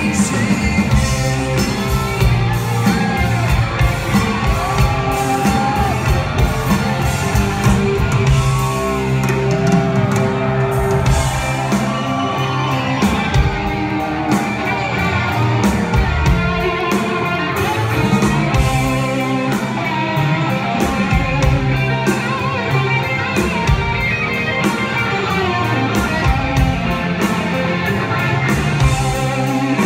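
A live rock band playing loudly, with an electric guitar lead over the drums. It is heard from the crowd in a large hall.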